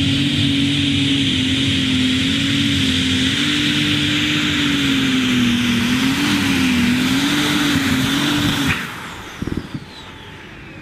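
Super Stock pulling tractor's turbocharged diesel engine running flat out, its pitch wavering slightly. Near the end it cuts off abruptly, followed by a couple of low thumps and a falling whine as the turbos spool down.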